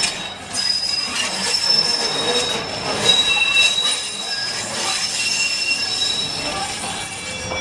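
Steel wheels of Pacific Electric streetcar 717 squealing against the rails as it rolls around the loop track. Several high squealing tones come and go and shift in pitch.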